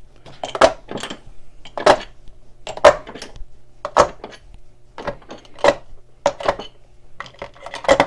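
Loaded .416 Barrett brass cartridges clinking against each other and a metal loading block as they are picked up and set down: about a dozen sharp, irregular metallic clinks, some ringing briefly.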